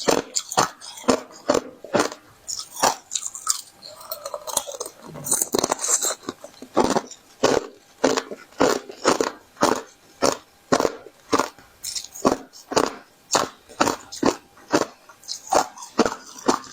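Thin, brittle sheets of ice being chewed, sharp crunches at a steady beat of about two a second, with a brief softer, less regular stretch about four seconds in.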